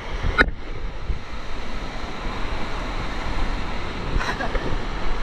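Water rushing and wind buffeting the camera microphone during a tube ride down a water slide, with a sharp knock about half a second in.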